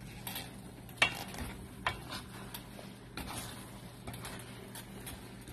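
A spatula stirring and turning cooked biryani rice in a large metal pot, with irregular scrapes and knocks against the pot's side, the sharpest about one and two seconds in, over a faint steady hum.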